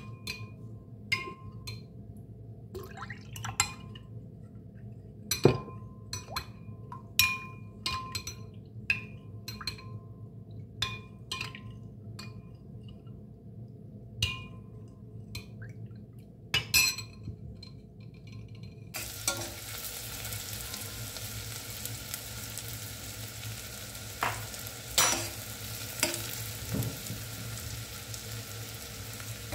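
A metal spoon stirs a thin milky mixture in a glass bowl, clinking irregularly against the glass with a short ring after each tap. About two thirds of the way in it changes to a steady sizzle of chopped onions and nuts frying in a metal saucepan, with a few spoon taps against the pan.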